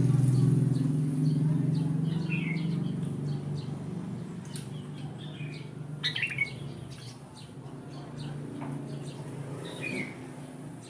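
Kutilang emas bulbul giving short chirping calls at intervals, clearest about two, six and ten seconds in, over a low rumble that fades in the first few seconds.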